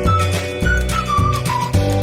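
Upbeat background music: a whistled or flute-like melody over a steady bass beat.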